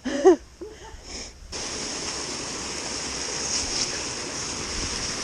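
Steady rushing of water at a canal lock, starting suddenly about a second and a half in and running on evenly.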